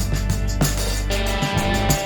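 Background music: a guitar-and-drums track with a steady beat.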